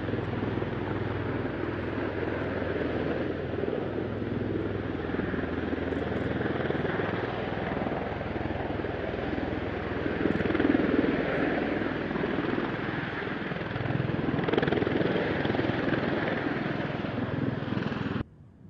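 V-22 Osprey tiltrotor's rotors and engines running, a loud steady throbbing rotor noise that swells twice and cuts off abruptly just before the end.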